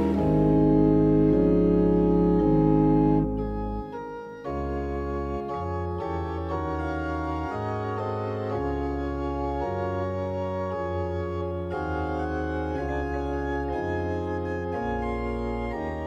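Organ playing a slow passage of sustained chords over a deep bass line, the notes changing about once a second, with a brief drop in level about four seconds in.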